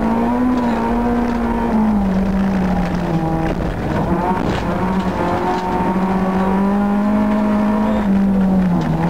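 Honda Civic rally car's engine heard from inside the cabin, pulling hard on a dirt stage. Its pitch drops about two seconds in and again near the end, with scattered clicks over the engine.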